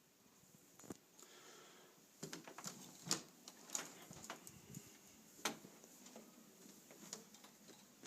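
Quiet room tone with faint, irregular clicks and taps scattered through it; the clearest come about three seconds in and again about five and a half seconds in.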